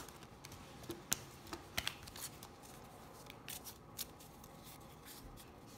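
A deck of game cards being shuffled by hand: soft, irregular card slaps and snaps at an uneven pace.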